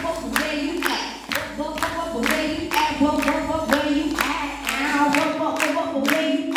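A woman singing into a microphone, with sharp percussive hits keeping a steady beat about twice a second.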